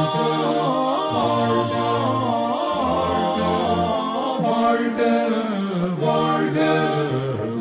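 A Tamil Christian hymn being sung in slow, held notes.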